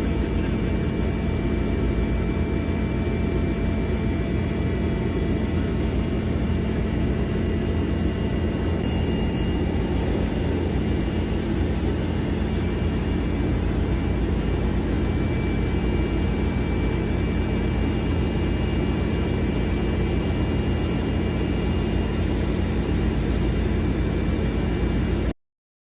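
Helicopter turbine engine and rotor running steadily: a loud, even low rumble with several steady high whines over it. The sound cuts off suddenly near the end.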